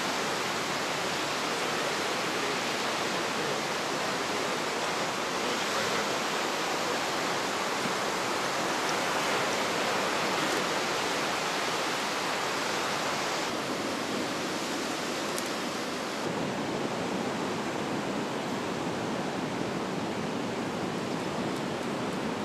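Pacific surf breaking and washing on the shore: a steady, even rush of water noise with no separate events, easing slightly in its upper hiss a little over halfway through.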